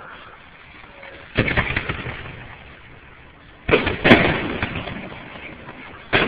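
Aerial firework shells bursting overhead: a loud bang about a second and a half in, a doubled bang near the middle and another right at the end, each trailing off over a second or more.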